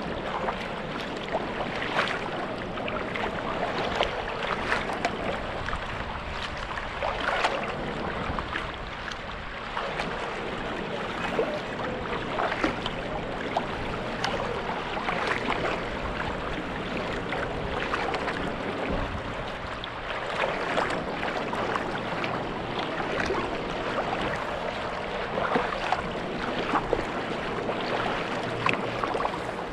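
Kayak paddling: carbon paddle blades dipping and pulling through the water, a splash at each stroke roughly every second or so, over steady rippling and swishing of water along the hull of a touring sea kayak.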